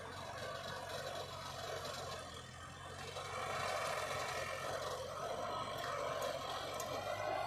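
Heavy diesel construction machinery running steadily, a continuous engine drone that dips slightly about a third of the way in and picks up again.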